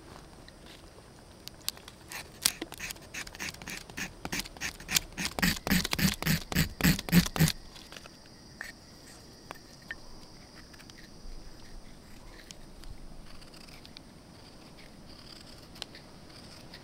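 Knife blade scraping a stick of fatwood (resin-rich pine) to raise fine shavings: a quick series of scraping strokes that grow louder and then stop about seven seconds in, followed by a few light scrapes.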